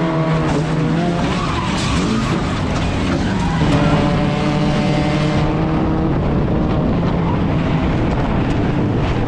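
Race car engines running at speed, a loud steady drone that shifts in pitch about four seconds in and cuts off suddenly at the end.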